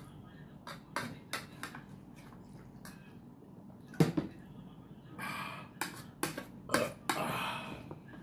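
Spoons clinking and scraping against ceramic bowls and plates during a meal, a scattered run of small clinks with one sharper knock about four seconds in. Two short stretches of eating noise from the mouth come in the second half.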